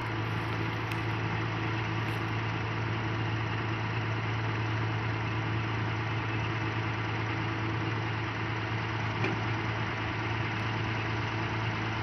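Combine harvester with a straw-chopping (toori) attachment running steadily: an even engine and machinery drone with a constant low hum, as chopped straw is blown out of the hood onto the pile.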